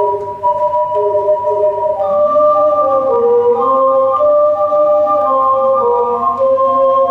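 Ocarina ensemble playing a slow melody in several-part harmony, with held, pure, flute-like notes; a lower part joins about two seconds in.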